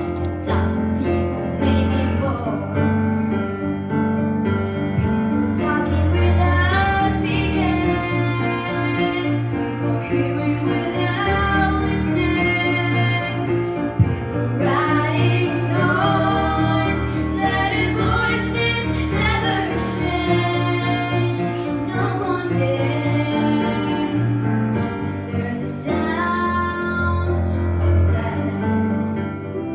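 Two girls singing a song together through stage microphones, over an amplified instrumental accompaniment with sustained bass notes. The song winds down near the end.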